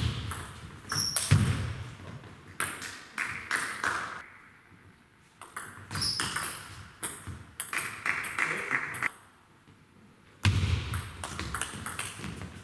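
Table tennis ball being hit back and forth in a rally, sharp clicks off the bats and the table, with a few heavier thuds.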